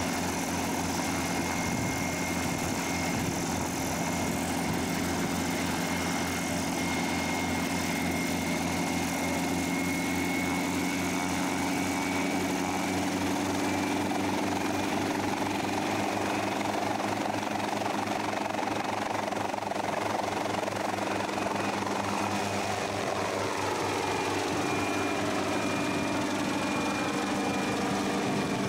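Light helicopter's engine and rotor running steadily, with a fast, even rotor beat. Near the end it lifts off and climbs away, and the pitch of its running sound shifts.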